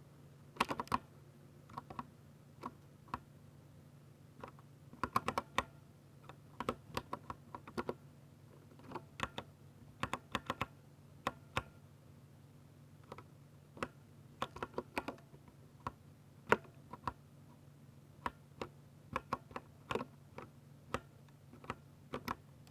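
Keystrokes on a Ducky 60% mechanical keyboard with silver linear switches, typed in irregular bursts of a few keys with short pauses between them.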